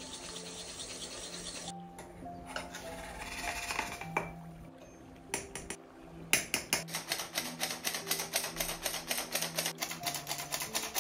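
A hand-held metal flour sifter clicking rapidly and evenly, about six clicks a second, over background music. Earlier, a wire whisk beats eggs in a ceramic bowl, then a metal spoon scoops powder into the sifter.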